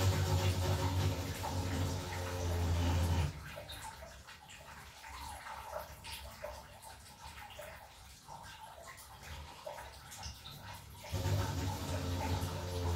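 Water rushing and splashing out at the base of an electric geyser during an element change, with a steady low hum. It comes in two spells: the first stops about three seconds in, and the second starts a couple of seconds before the end.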